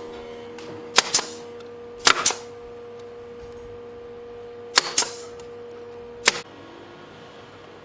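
Hammer blows on wood, mostly struck in quick pairs, four rounds of knocks over a steady hum.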